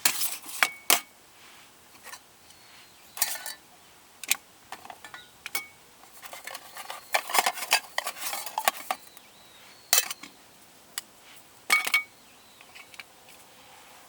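Metal camp cookware and utensils being handled: irregular clinks and clatters, a few ringing briefly, busiest in the middle.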